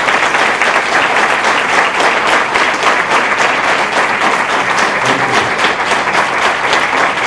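Audience applauding, a dense and steady clapping of many hands, loud throughout.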